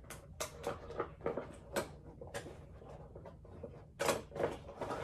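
Rustling and crinkling of Funko Pop packaging being handled: a run of irregular crackles, with a louder cluster about four seconds in.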